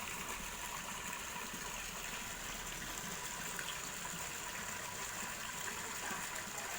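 Steady rush of water pumped up from the borehole by a 0.5 hp satelit (shallow-well) pump.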